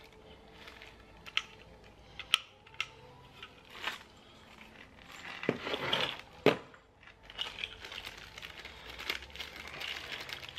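Parts handled on a plastic workbench: a few scattered light knocks and taps as a battery isolator switch is set down, the sharpest about six and a half seconds in, then a clear plastic packaging bag crinkling as a fuse holder is taken out of it.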